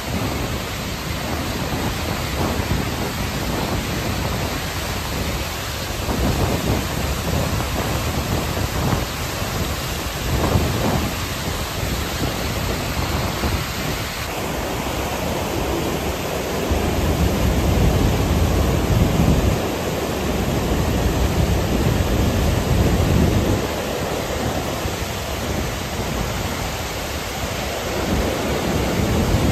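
Waterfall in flood after weeks of heavy rain, crashing into a churning pool: a loud, steady rush of water with slow, surging low rumbles.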